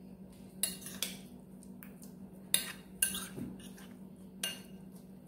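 Metal spoon stirring thick, sticky oat batter in a glass mixing bowl, knocking and clinking against the glass about five times, each a sharp clink with a brief ring.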